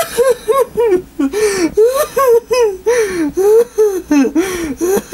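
A voice crying out in a rapid run of short, high-pitched wails, each rising and then falling, about three a second, like overwrought sobbing.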